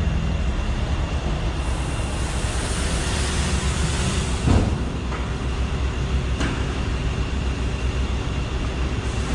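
Truck-wash bay: a steady low mechanical hum from pumps or an idling engine, with water spraying in a hiss from about one and a half seconds in for three seconds. A single knock comes about four and a half seconds in, and a faint click follows about two seconds later.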